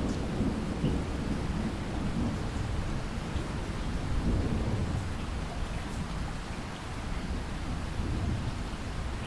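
Steady heavy rainfall, a dense even wash of sound weighted toward the low end, with a few single drop ticks standing out now and then.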